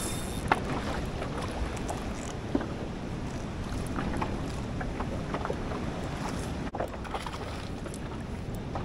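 Wind buffeting the microphone over choppy sea slopping against a kayak hull, with scattered small clicks and knocks and one sharper knock about half a second in.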